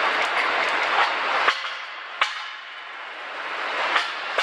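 Engine assembly-line factory noise: a loud steady hiss and rumble that cuts off sharply about a second and a half in, leaving quieter machine noise, with several sharp metallic clanks and clicks.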